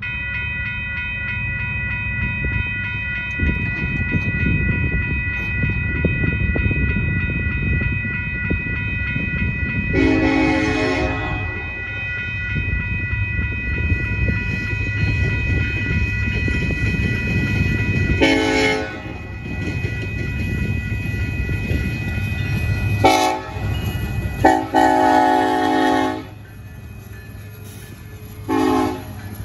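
Grade-crossing warning bell ringing steadily while a Union Pacific diesel freight locomotive approaches with a low rumble, its horn blowing the crossing signal: long, long, short, long. Two more short horn notes come near the end, as the locomotive reaches the crossing.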